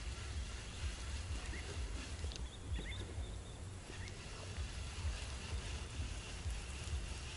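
Outdoor ambience by the water: a steady, uneven low rumble with a few faint, short high chirps in the first half.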